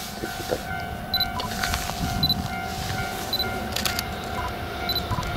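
An EF65 electric locomotive hauling a freight train approaches, its rumble slowly growing under a steady whine. Wheel clacks over rail joints come in near the end.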